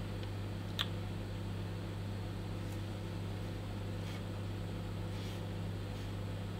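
Steady low electrical hum with faint hiss from the running bench equipment, with one light click about a second in as a hand works the signal generator.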